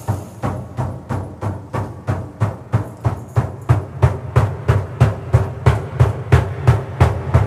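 Music: a drum beaten steadily about three times a second over a low, held drone, with no singing.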